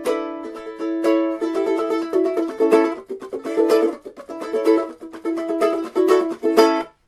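Background music: a ukulele playing chords in a steady rhythm, with no voice, stopping suddenly near the end.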